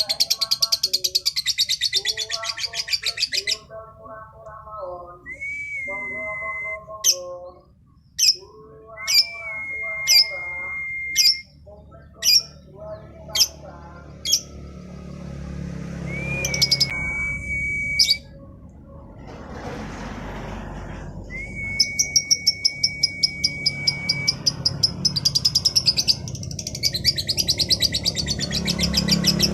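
Female lovebird singing in the chatty, nonstop 'gacor' style. Its song mixes fast, high trilling chatter at the start and again near the end with sharp single chirps and several long, level whistled notes in between.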